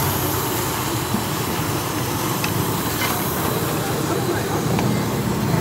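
Steady sizzling hiss of potatoes deep-frying in a pan of hot oil, over a continuous low rumble.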